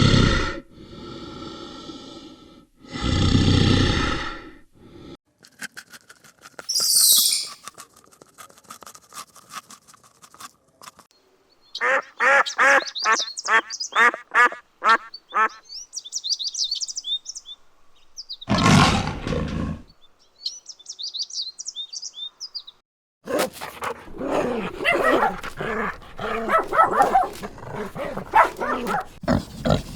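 A series of different animal calls played one after another, with short gaps between them: loud calls near the start and again about two-thirds of the way through, a rapid run of pulses in the middle, high chirping after it, and a dense stretch of calls near the end.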